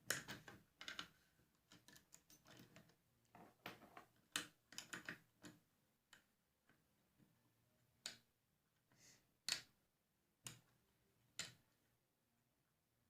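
Faint, irregular clicks of a wrench tightening the nut onto the hanger bolt of a narrow crown stapler: a quick run at the start, another a few seconds in, then single clicks about a second apart.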